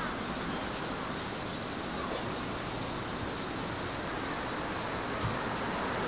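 Steady outdoor background noise, an even hiss with a constant high-pitched band, and a faint short bird call about two seconds in.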